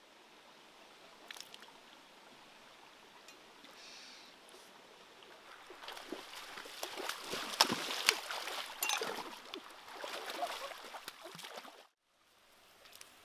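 Shallow stream running over rocks, then from about five or six seconds in, feet splashing through the water in quick irregular strides as someone wades across; the splashing cuts off suddenly near the end.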